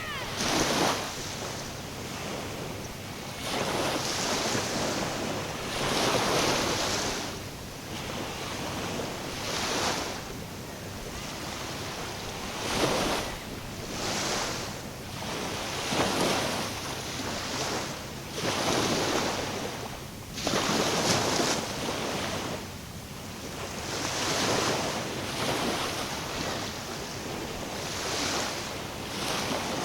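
Waves washing in and drawing back, a hiss that swells and fades every two to four seconds, with wind on the microphone.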